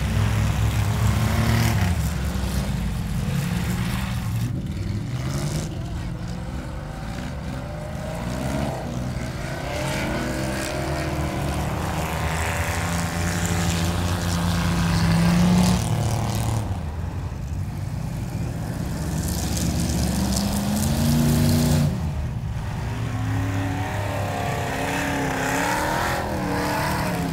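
Race car engine, a dirt modified's engine in an ice racing car, running laps: its pitch climbs for several seconds at a time as it accelerates, then drops sharply as the driver lifts, over and over. It is loudest twice, about 15 and 21 seconds in, just before the pitch falls away.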